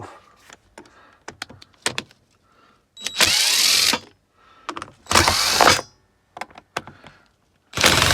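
Cordless electric screwdriver whirring in three short bursts of about a second each, undoing the screws of a power tool's casing to get at the switch. Small clicks and knocks from handling the parts come between the bursts.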